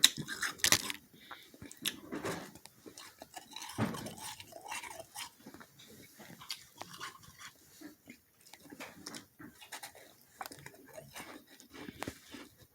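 A person biting and chewing soft freezer frost close to the microphone, with irregular slushy crunches, several of them louder near the start.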